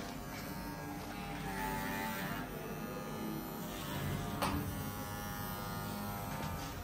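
Electric hair clippers buzzing steadily as they shave a cat's coat, with a brief click about four and a half seconds in.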